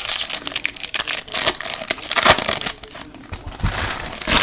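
Foil trading-card pack wrapper crinkling and rustling in the hands, a dense run of quick crackles and clicks, sharpest a little after two seconds in and again near the end.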